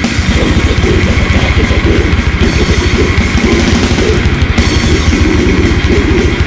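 Death metal from an early-1990s demo tape: heavily distorted guitars over fast, dense drumming that pounds steadily throughout.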